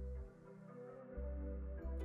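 Soft background music with sustained tones over changing bass notes.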